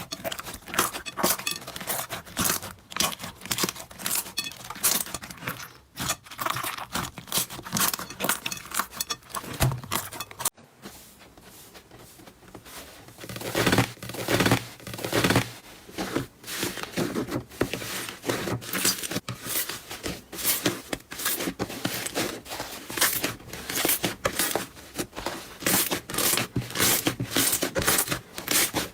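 Slime being squished and pressed by hand, making rapid crackling and popping clicks. The sound cuts off about a third of the way in, goes quieter for a few seconds, then the dense popping picks up again.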